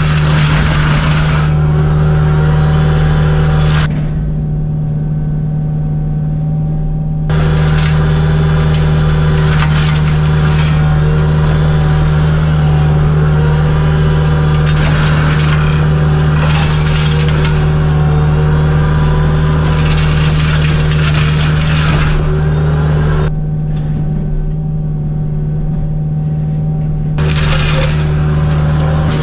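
Kubota U55-4 mini excavator's diesel engine running steadily under load while its Agrotk flail mower attachment shreds brush with a heavy crashing clatter. The shredding cuts out twice for a few seconds, about four seconds in and again near the end, while the engine hum carries on.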